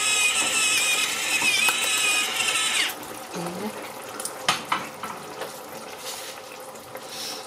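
Electric spice grinder over the pan, its small motor whining steadily with a slight wobble in pitch, then cutting off about three seconds in. After that the sauce simmers softly, with a single sharp click a little later.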